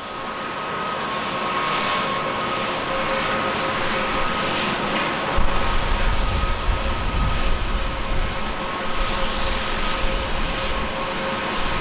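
Boeing 767-300ER's jet engines running at taxi power, a steady whine over a broad rush of engine noise. A heavy low rumble joins about five seconds in.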